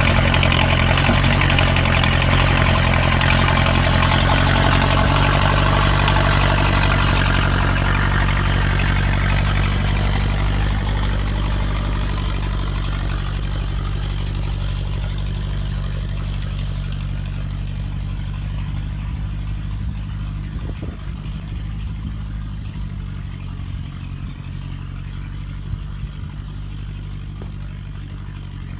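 1957 Ford 861 tractor's engine running steadily while it digs a trench, with a few clanks in the second half. The sound is loud at first and slowly grows quieter.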